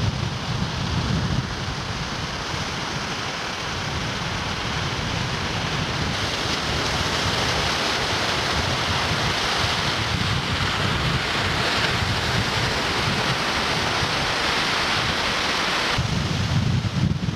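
Wind buffeting the camcorder microphone in low rumbling gusts, strongest at the start and near the end, over the steady rushing hiss of waves breaking on the lakeshore, which grows louder about six seconds in.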